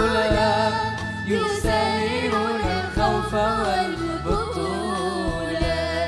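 Children singing an Arabic song together into microphones, with band accompaniment.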